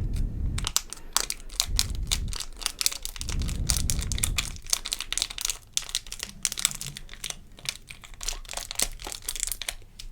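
Packaging being opened close to the microphone: dense, irregular crinkling and crackling with some tearing, and a few dull handling thumps in the first half.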